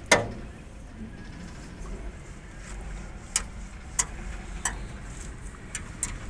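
Hands working the truck's side body and its hooks. There is one loud knock with a short ring right at the start, then a handful of lighter clicks and taps over the last few seconds, over a low steady rumble.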